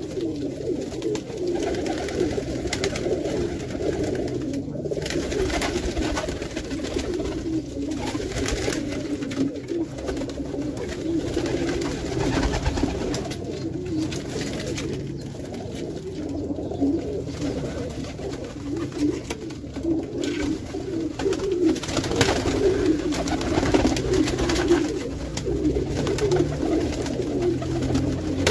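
A flock of Pakistani and Indian high flyer pigeons cooing all together, a steady overlapping chorus in a small room. Wing flaps sound now and then as birds take off and land.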